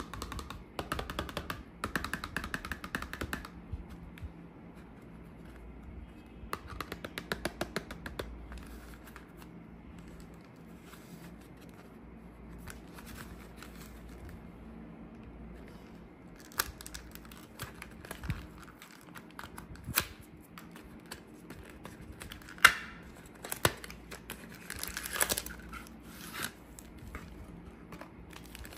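Hands handling and opening a paperboard chocolate-bar box: rapid scratchy rustling of the cardboard in the first few seconds and again around seven seconds in. In the second half come sharp clicks, tearing and crinkling as the box flap is opened and the bar's plastic wrapper is handled, the loudest click about 23 seconds in.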